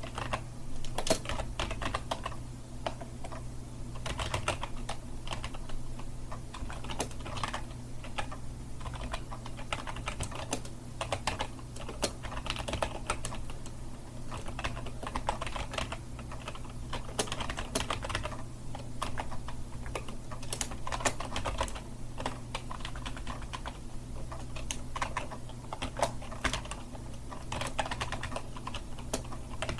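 Continuous typing on a computer keyboard: quick, irregular key clicks with occasional louder strokes, over a faint steady low hum.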